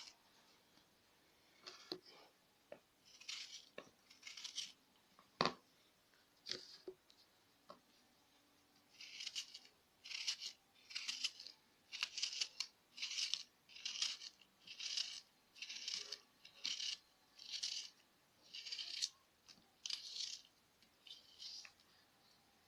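A knife slicing through an onion into rings, a series of short crisp cuts that settle into about one a second, with a sharper knock of the blade about five seconds in.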